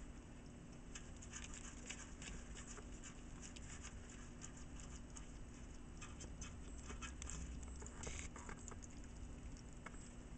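Pet hedgehog self-anointing: faint, quick, irregular clicks and crackles of its licking and of the pellet bedding shifting under it, with a short louder rustle about eight seconds in. A steady faint hum runs underneath.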